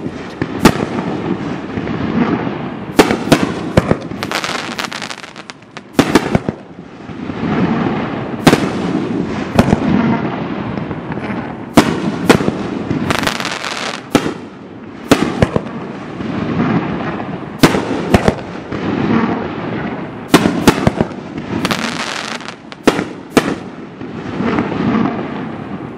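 Mad Ox Double Barrel 500-gram consumer firework cake firing shot after shot: a long string of sharp bangs, often two or three in quick succession, over a continuous rumble between them.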